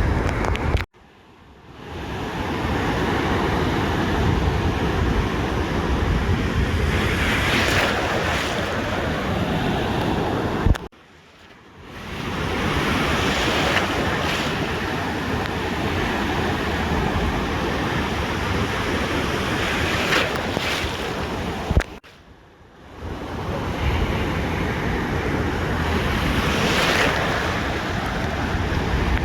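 Ocean surf washing onto a beach, swelling every several seconds, with wind buffeting the microphone. The sound cuts out abruptly three times, about ten seconds apart, and fades back in over about a second each time.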